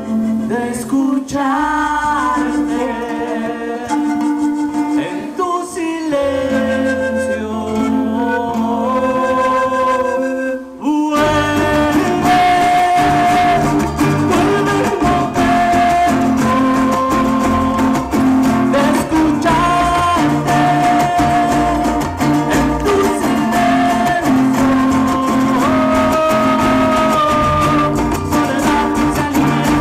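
Music led by guitar. About eleven seconds in it changes abruptly to a fuller, louder section with a steady beat.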